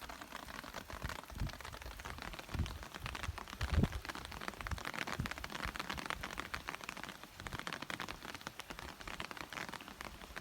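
Hail falling, a dense, steady stream of small ticks as hailstones strike close to the microphone, with a few low thumps, the loudest nearly four seconds in.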